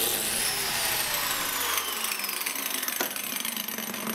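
Biscuit joiner's motor running while cutting a biscuit slot in a plywood joist with its small circular saw blade. Its whine slides down in pitch, and there is a click about three seconds in.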